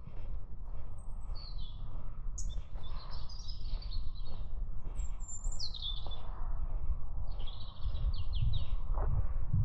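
Small woodland birds chirping in short high calls, many sliding down in pitch, over a steady low rumble.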